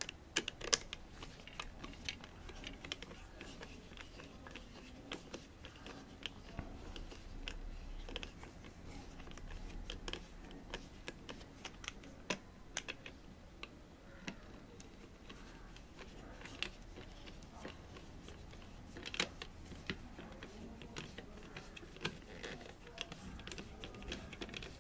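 Irregular small clicks and ticks of a small hand screwdriver turning screws in a hard drive's black plastic mounting frame, mixed with the plastic casing being handled and turned over.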